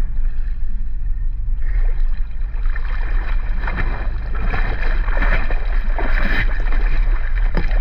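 Motorboat under way: a steady low engine drone, with water rushing and splashing against the hull from about two seconds in.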